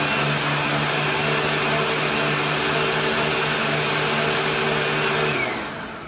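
Hoover Tempo Widepath upright vacuum running, drawing through its hose and an extension wand on a hard floor, a steady motor drone with a high whine. About five seconds in it is switched off and the motor winds down, its whine falling away.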